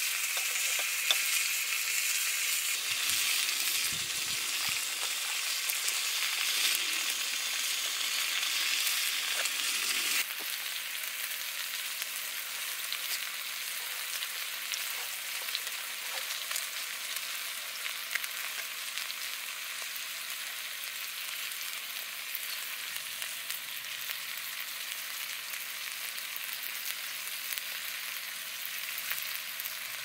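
Food frying in a pan, a steady sizzle with scattered small pops; about a third of the way through it turns quieter.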